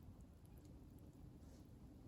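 Faint, sparse crackles of a wood fire burning, over a faint steady hum.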